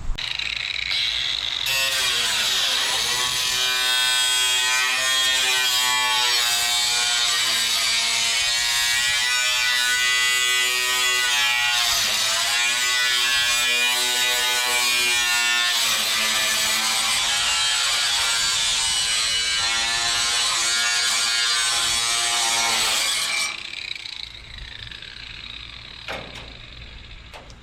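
Power tool cutting across a sheet-metal roofing panel: a motor whine whose pitch dips and recovers as it bites into the metal, over a harsh high hiss. It stops about 23 seconds in.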